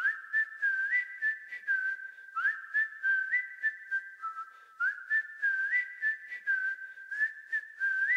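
Whistled melody with quick upward pitch slides between notes, over light ticking percussion: the opening of a pop song's backing track.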